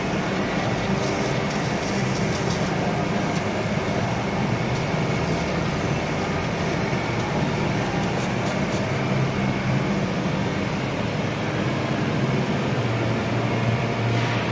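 Laser marking machine running as it engraves a metal disc: a steady hum with a hiss over it.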